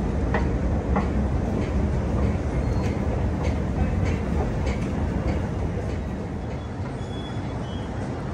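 Underground metro station ambience: a steady low rumble with a few light clicks, easing slightly about six seconds in.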